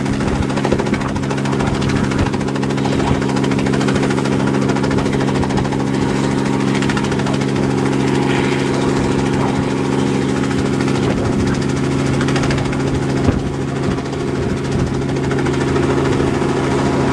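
Robinson R44 piston helicopter hovering low and lifting off, its engine and two-blade main rotor making a loud, steady drone.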